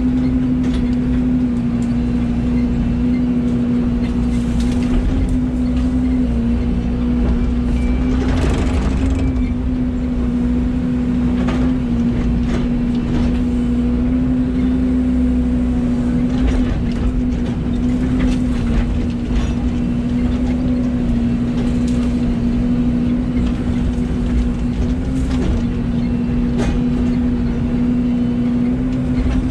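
Excavator running steadily at working revs, a constant engine-and-hydraulic hum, with scattered knocks and clanks from old pipe and junk being grabbed and loaded.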